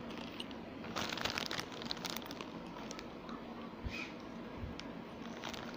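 Clear plastic zip bag crinkling as it is handled, a dense run of crackles between about one and two and a half seconds in, then a few lighter crackles.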